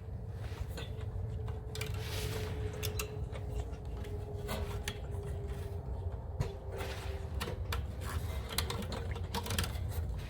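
Scattered small clicks, taps and light rattles of small parts of an RV gas water heater being handled and worked loose by hand, over a steady low rumble.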